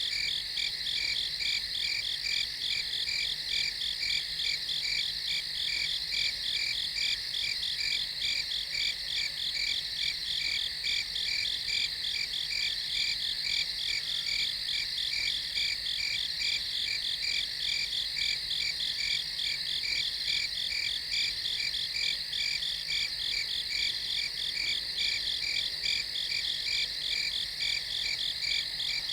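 A night chorus of crickets chirping in a steady, rapid, evenly pulsing trill that goes on without a break.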